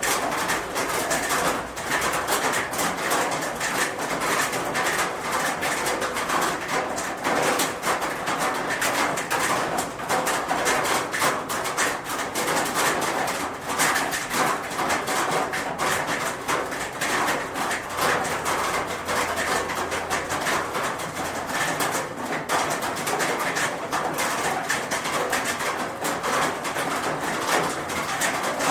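Steady rain falling on a roof: a dense, even patter of many small drop impacts.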